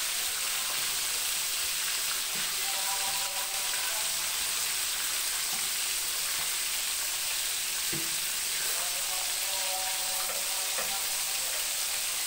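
Small whole fish frying in hot oil in a wok: a steady sizzling hiss of bubbling oil.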